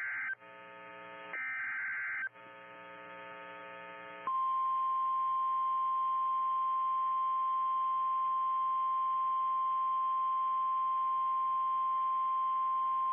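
NOAA Weather Radio alert: the screeching digital SAME header bursts, separated by a buzzing gap, then from about four seconds in the steady 1050 Hz Weather Alert Tone, signalling that a new warning message follows.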